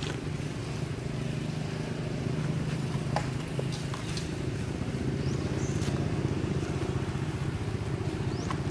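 Steady low engine hum, like a motor vehicle running, with a few faint clicks on top.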